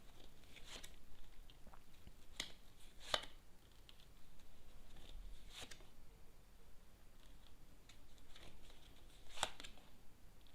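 Tarot cards being handled and drawn: a few brief snaps of cards, seconds apart, over soft rustling.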